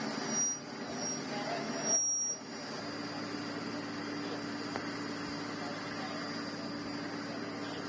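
Steady machine hum with a constant high whine. About two seconds in it settles into an even, lower drone.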